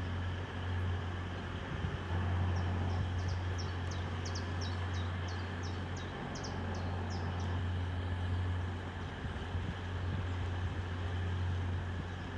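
Steady low hum, with a small bird calling a quick run of short, high chirps a few seconds in.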